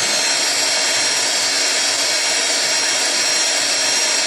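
Heat gun running steadily, blowing hot air: an even rush of air with a steady high whine on top.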